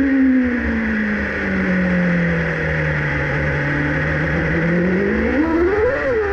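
A Formula 1 car's engine heard from on board. The revs fall and it runs low and steady for a couple of seconds, then the engine revs up sharply about five seconds in, with a brief dip at the end.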